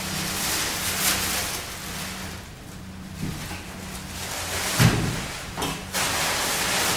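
Stretched canvases and picture frames being shifted among a stack, scraping and rustling, with a dull knock about five seconds in. A steady low hum runs underneath.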